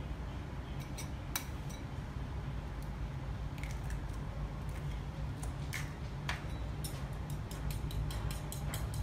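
Eggs being cracked on a bowl with a few separate sharp taps, then a metal spoon beating the eggs in a small bowl, clicking against it quickly and evenly, about five times a second, from about seven seconds in. A steady low hum lies underneath.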